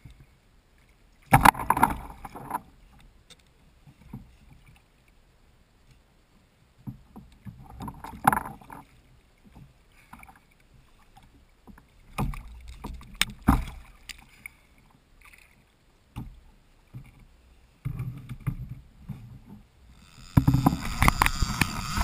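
Irregular knocks and thumps against a plastic kayak hull as a fish is handled and unhooked beside it. About twenty seconds in, a steady buzzing sets in suddenly and carries on: a fishing reel's clutch giving line to a hooked fish.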